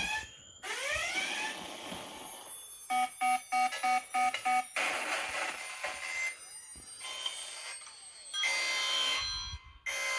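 A succession of alarm tones: gliding tones at first, then a rapid beeping of about three beeps a second from about three seconds in, followed by other ringing tones.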